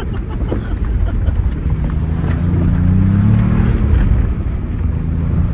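2021 Ford Bronco's 2.7-litre twin-turbo V6 pulling under load through deep snow. The engine note climbs about two seconds in and eases back near four seconds.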